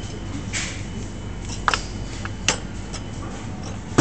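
Steady background hum of a shop with a faint high whine, a soft rustle about half a second in, and a few sharp clicks and knocks, the loudest near the end.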